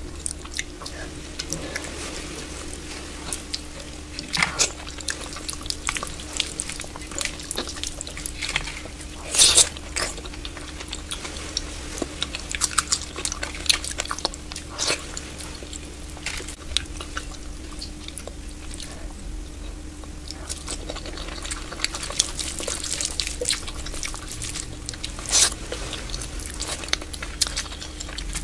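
Close-up eating sounds of soft dal khichdi eaten by hand: wet chewing and lip smacks, with fingers squishing and mixing the rice and lentils. Irregular sharp clicks and smacks, loudest about nine seconds in.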